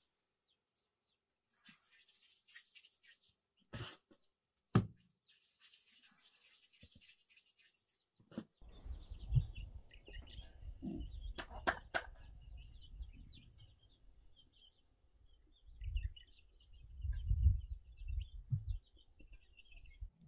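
Small birds chirping in short, repeated bursts over a gusty low rumble that swells twice. Before that there are only a few soft clicks and rustles.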